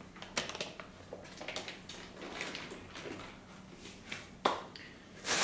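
Faint rustling of plastic packaging and light handling clicks, with a sharper knock about four and a half seconds in and louder plastic crinkling starting near the end.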